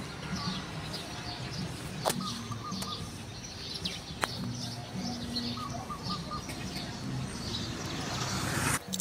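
Small birds chirping and trilling in short repeated phrases over a low steady hum, with two sharp clicks about two and four seconds in.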